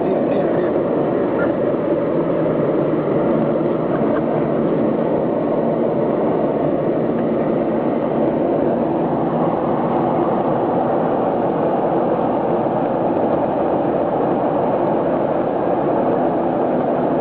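Aircraft engines and airframe heard inside a passenger plane's cabin: a loud, steady noise with a low hum that holds level throughout.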